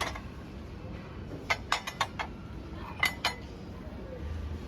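Kitchen utensils clinking and tapping together as they are handled. There is one clink at the start, a quick run of five light clinks about a second and a half in, then two more about three seconds in.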